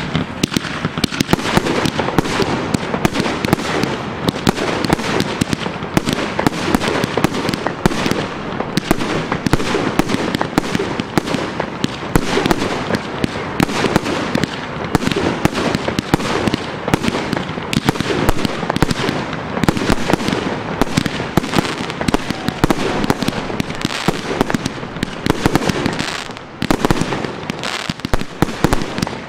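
Professional fireworks display firing a dense, continuous barrage: rapid bangs of launches and bursts mixed with crackle. It starts abruptly and eases briefly near the end.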